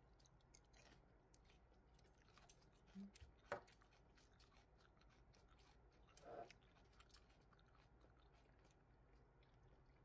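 Faint close eating sounds: crunchy raw yellow bell pepper being chewed, with small clicks of utensils or dishes, a sharp click about three and a half seconds in and a short rustle a little after six seconds.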